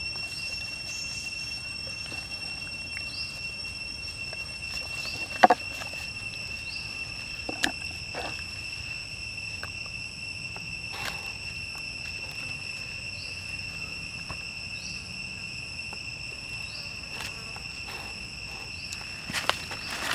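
Steady, high-pitched drone of insects, likely crickets or cicadas, with a few brief knocks and handling noises over it; the sharpest knock comes about five seconds in.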